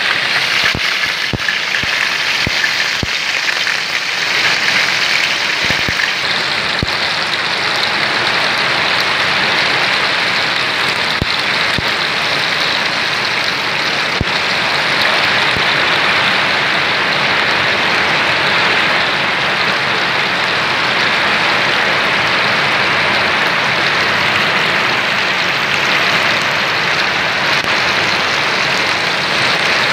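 A whole moonfish frying in hot oil in a wok, sizzling steadily, with a few sharp pops in the first several seconds.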